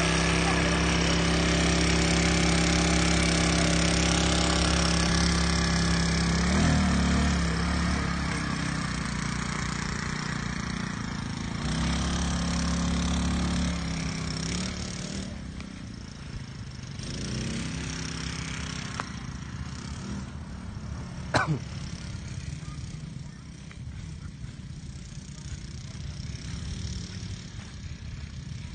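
Small 150cc dune buggy engine running steadily close by, revving up a few times, then pulling away across the field with a quad bike and fading into the distance. A single brief sharp sound about two-thirds of the way through.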